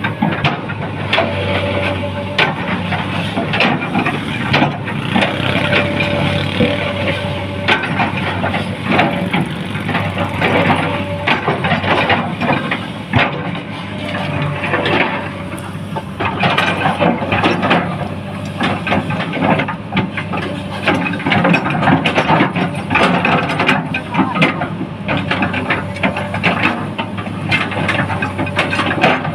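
A heavy engine running steadily, with frequent knocks and clattering over it throughout.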